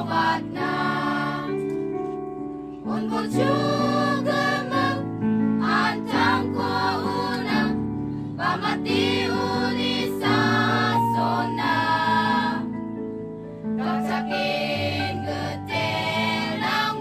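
A choir singing together in phrases of held notes, with short breaks between phrases.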